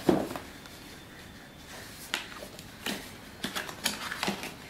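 Cardboard router box being handled and its white inner box slid out of the printed outer sleeve: a knock just after the start, then scattered taps and scrapes of cardboard.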